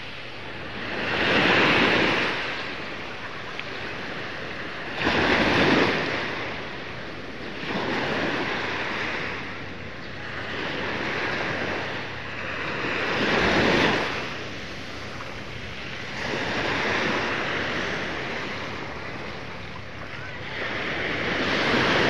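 Small sea waves breaking and washing up on the shore, each swelling and fading in turn, about one every three to four seconds.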